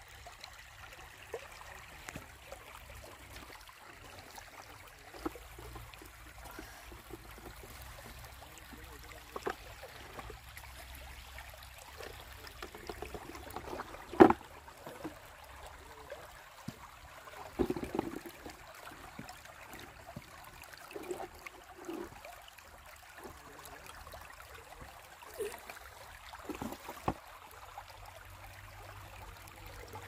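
Shallow river water trickling steadily, with scattered short clicks and knocks, the loudest about halfway through.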